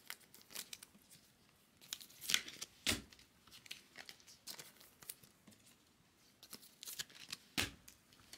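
Trading-card pack wrappers crinkling and tearing open as packs of baseball cards are opened and the cards handled, in scattered crackles; the sharpest come about two and three seconds in and again near the end.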